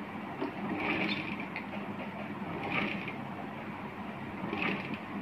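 Sewing machine running, stitching a fabric collar piece, with a steady whirr that swells louder about three times.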